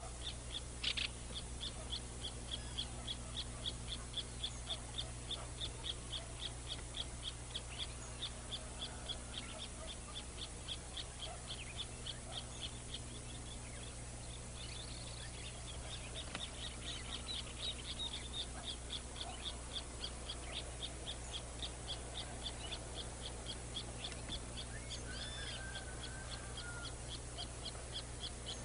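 High, evenly repeated chirping, about three chirps a second, with a few other brief calls now and then, over a constant low hum.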